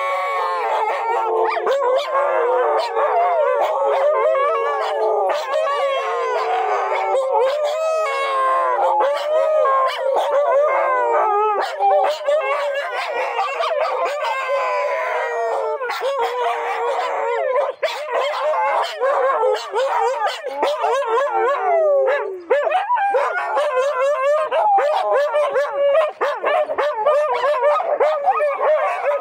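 A pack of huskies howling together: many long, overlapping howls rising and falling in pitch. In the last third the howls break up into shorter, choppier barks and yips.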